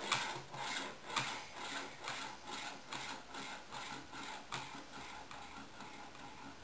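Steel ball rolling back and forth in a V-shaped metal track, a rolling rumble with a click about two or three times a second, growing fainter as the ball loses energy and slows.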